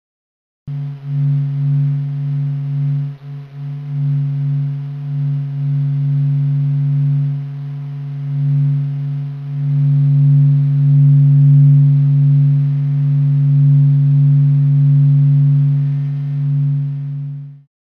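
Sonification of the Sun presented as its 'sound': a deep, steady drone that swells and dips in loudness. It starts about a second in and cuts off just before the end.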